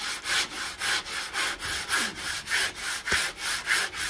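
Sandpaper held in the hand, rubbed back and forth over Huon pine hull planking in quick, even strokes, about three a second, knocking down plugs that stand proud of the surface.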